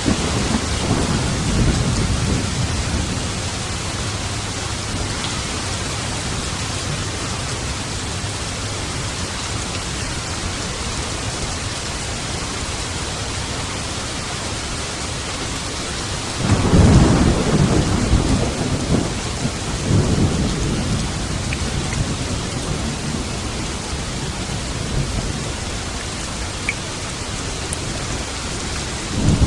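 Steady rain with thunder. A low rumble rolls near the start; just past the middle a sudden, louder peal rumbles on for a few seconds; another rumble begins at the very end.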